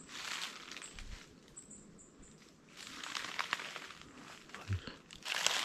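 Footsteps rustling and crunching through dry leaves and brush in three spells, with a few short, very high chirps in between.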